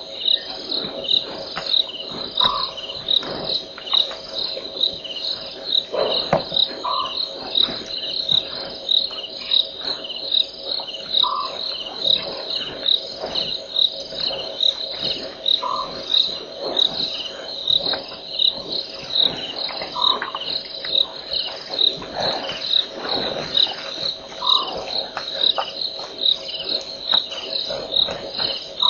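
Crickets chirping at night in a steady, even rhythm of high-pitched chirps, a little more than one a second. A separate short, lower-pitched call repeats about every four and a half seconds.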